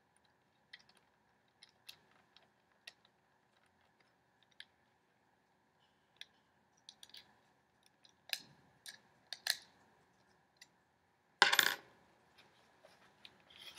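Small metal clicks and taps from a tripod quick-release plate being screwed onto the bottom of a camera, sparse at first and busier later, with a louder clatter about eleven and a half seconds in.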